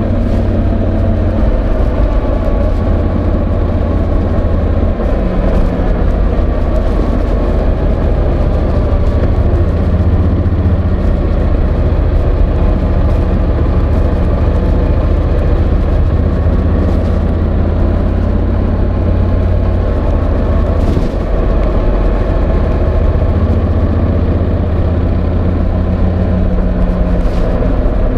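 Honda NC750X's parallel-twin engine running steadily, its pitch shifting slightly with small throttle changes, heard through a microphone in a jacket pocket, with fabric scraping on the microphone a few times.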